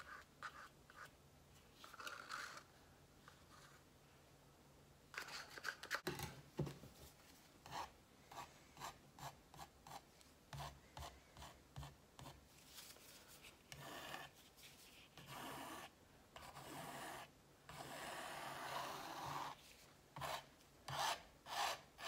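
A hair pick's teeth scraping across a stretched canvas through wet acrylic paint in a series of short strokes, about one or two a second, starting about a quarter of the way in. Near the end comes one longer scrape lasting a couple of seconds.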